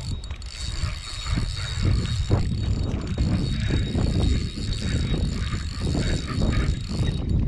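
A fishing reel being cranked, whirring unevenly, as a catfish is brought in on the line, with heavy wind rumble on the microphone.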